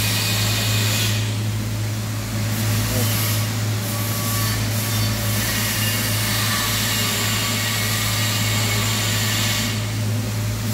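Steady low hum of workshop machinery running, with an even hiss above it and no breaks.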